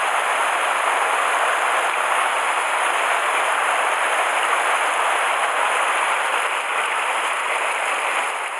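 Mountain stream flowing over and between boulders: a steady, even rush of water.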